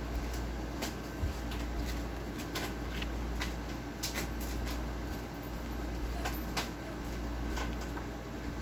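Cookbook pages being turned and handled: a string of light, irregular clicks and paper sounds over a steady low hum.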